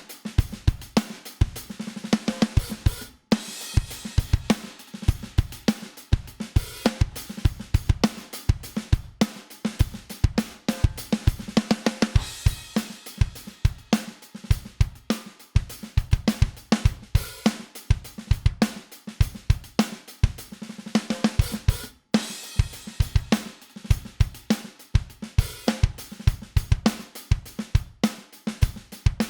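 A full drum kit recording (kick, snare, hi-hat and cymbals) plays as a mixed drum bus through a variable-mu compressor plugin, with a steady groove. It drops out briefly about 3 seconds in and again about 22 seconds in, where the loop starts over.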